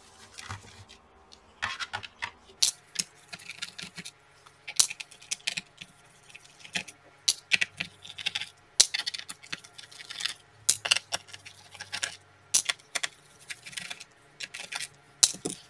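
Irregular small clicks, taps and rattles of a screwdriver turning screws out of a laptop's plastic bottom cover, with the loose screws being handled.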